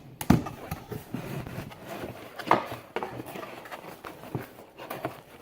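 A cardboard retail box being handled and opened, with scattered clicks and knocks and light rustling of the packaging; two sharper knocks come shortly after the start and about halfway through.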